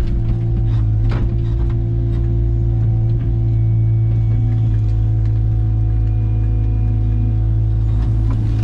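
Diesel engine of a heavy earthmoving machine running steadily with a deep drone, its pitch shifting slightly as the load changes, with a few short sharp knocks about a second in.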